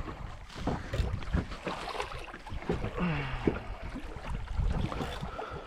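Wind buffeting the microphone on a small fishing boat, with scattered knocks and a short falling tone about halfway through.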